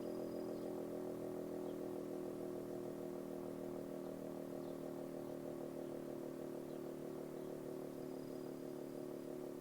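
Federal Signal RSH-10A Thunderbeam outdoor warning siren sounding a steady tone during a test.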